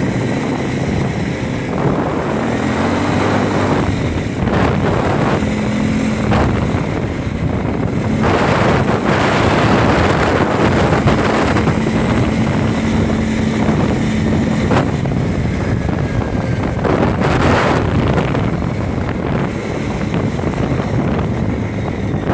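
Quad bike (ATV) engine running while riding, mixed with heavy wind buffeting on the microphone that swells in gusts about a third of the way in and again near the end.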